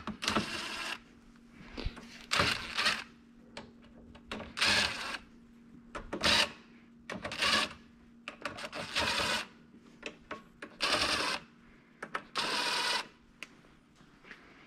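DeWalt DCF887 brushless cordless impact driver driving screws home, in about eight short rattling bursts of half a second to a second each, as the gear rack is fastened to its back plate.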